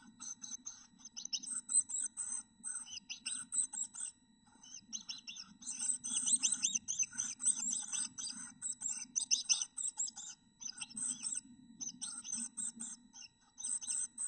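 Black-capped chickadee nestlings, 13 days old, begging with mouths agape: rapid runs of short, high-pitched chirps that come thickest and loudest in the middle, over a faint steady low hum.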